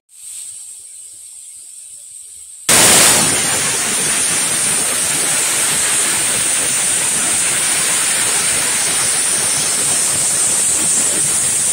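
Aluminium pressure cooker of chana dal: a faint hiss of escaping steam, then about three seconds in the weight lifts and the cooker whistles, letting out a loud, steady jet of steam. This is the cooker reaching full pressure, one of the whistles counted to time the dal.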